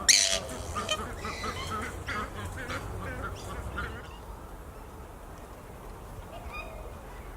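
Purple swamphen giving a run of short, soft squawks that sound like hiccups, about three a second, with the loudest one right at the start. The squawks die away about four seconds in, and one faint call comes near the end.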